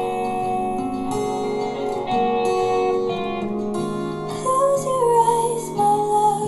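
Music with guitar and a singing voice, played through a small box speaker driven by a Mazda RX-8's Bose 5-channel car amplifier on a bench test of its first channel. The voice carries a gliding melody in the second half.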